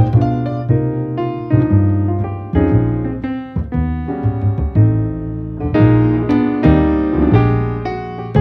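Background piano music: a steady run of struck notes over low bass notes.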